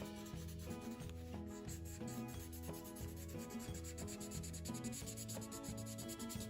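Background music: a bass line and held notes that change every half second or so, over a fast, steady, scratchy rhythm.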